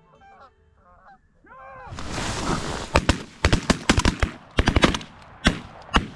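Goose honks in the first second or two, then from about three seconds in a rapid, overlapping volley of shotgun blasts as a line of hunters fires together at incoming Canada geese, the shots coming several a second.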